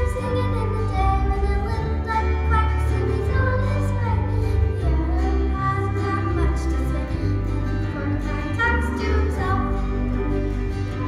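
A children's choir of young girls singing into microphones over instrumental accompaniment with a strong, steady bass.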